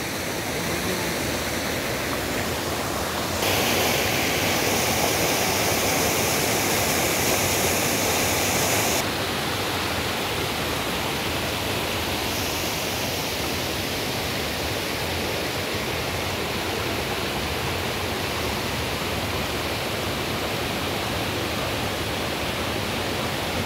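Waterfall rushing steadily. The rush grows louder and brighter for several seconds starting about three seconds in, then settles back.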